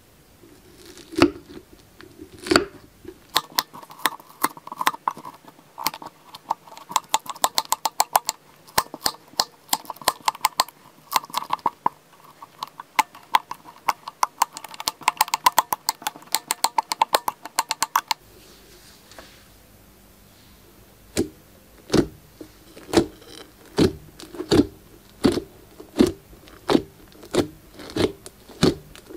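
Glossy slime with foam beads being stirred and folded with a spatula on a glass plate, giving dense rapid crackling and clicking. After a short pause, fingers poke the slime, making regular wet pops a little under once a second.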